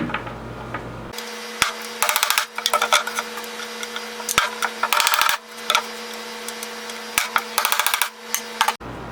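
A hammer striking a socket to drive T-nuts down into wood. The blows come in quick runs of several strikes, with single knocks in between, over a steady low hum.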